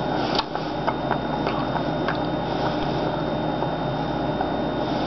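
Steady room hum with a few soft, wet clicks of a person chewing food in the first two seconds.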